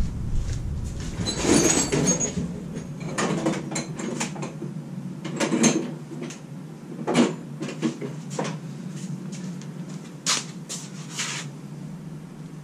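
Scattered knocks and clatters of tools being rummaged through and handled while a torque wrench is fetched, over a steady low hum.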